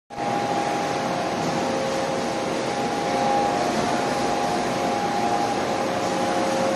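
Roll-to-sheet paper cutting machine running: a steady mechanical hum with a whine of a few steady tones that drop in and out.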